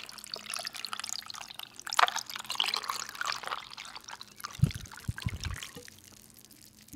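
Bottled tea poured over ice in a glass mug: liquid trickling, with the ice crackling and fizzing as it fills. A few dull knocks of the mug being handled partway through.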